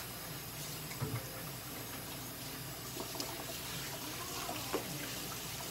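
A few short clicks of nail clippers cutting a cat's claws over a steady background hiss.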